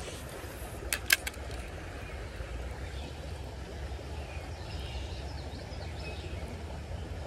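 Two or three sharp clicks from the fishing rod and spinning reel about a second in, just after a cast, over a steady low rumble. Faint bird chirps come in around the middle.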